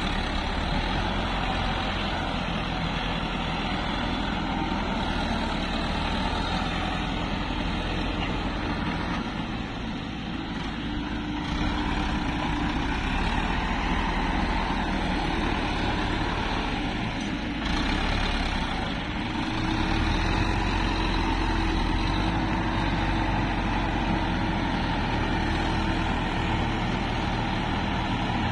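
Diesel engines of a Sonalika tractor and a Hyundai crawler excavator running steadily. A higher steady tone rises out of the engine noise briefly near the middle and again for several seconds later on.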